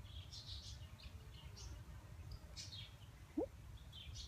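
Small birds chirping faintly in short, scattered calls over a steady low background rumble, with one brief rising note about three and a half seconds in.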